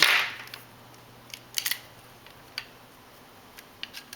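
Small metallic clicks and taps from handling a revolver as it is put back together, after a short rustle at the start. The clicks come singly and irregularly, a few of them close together.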